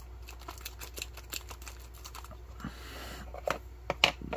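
Small handling noises at a table: a plastic jelly packet rustling and light clicks, then a few sharper taps near the end as a hardtack cracker is set down in a hard plastic tray. A steady low hum runs underneath.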